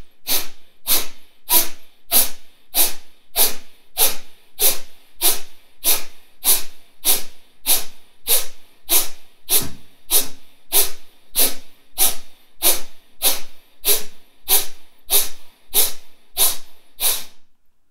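Kapalabhati breathing: a man's short, forceful exhalations through the nose, a steady run of sharp puffs a little under two a second, with quiet passive in-breaths between. The run stops shortly before the end.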